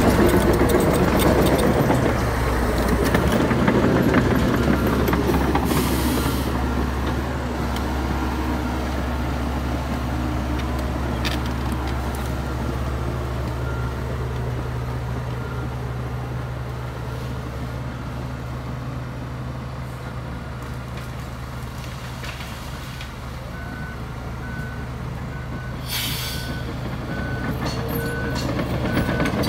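Heavy diesel earthmoving machinery running, its engine louder at first, easing off, then building again near the end. A reversing alarm beeps steadily over the last few seconds, and short air hisses come twice, once early and once near the end.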